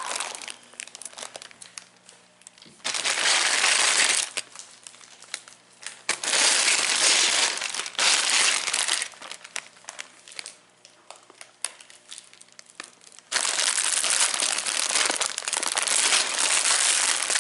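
Plastic bag crinkling as it is handled and worked open, in three long stretches with light clicks and rustles between them.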